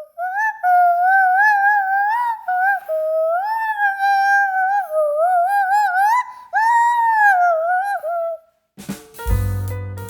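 A whistled tune: one clear tone sliding from note to note. About nine seconds in, instrumental music with piano, bass and drums starts.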